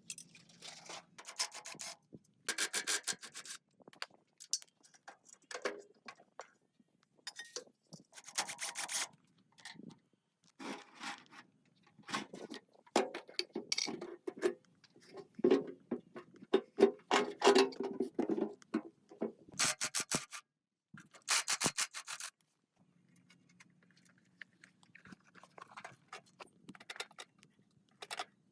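Repeated scraping and rubbing strokes in irregular bursts with short pauses between them. The strokes stop a little after two-thirds of the way through, leaving a faint low hum.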